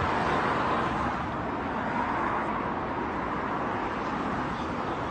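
Steady motor-vehicle noise: a car engine running and road traffic, an even rumble with no clear rise or fall.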